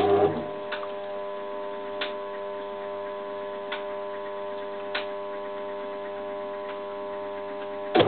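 Washing machine standing with a steady electrical hum and about six sharp, unevenly spaced clicks, roughly one every second and a half: the mechanical timer running and stepping. A louder machine sound cuts off in the first half-second.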